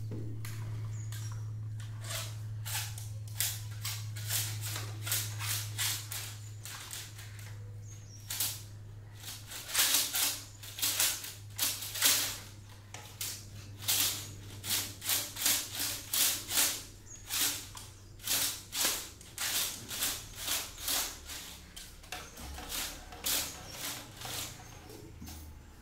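Electrical wires being handled during house-wiring work: repeated short scraping and rustling strokes, irregular, one or two a second and busiest through the middle, over a steady low hum.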